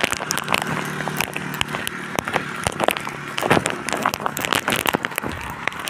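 Rain falling, with many sharp, irregular drop hits close to the microphone. A faint low steady hum lies under it during the first couple of seconds.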